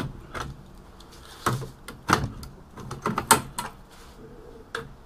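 Back plate of an Apple eMac being pried off with pliers: a series of clanks, knocks and scrapes, the loudest about three seconds in.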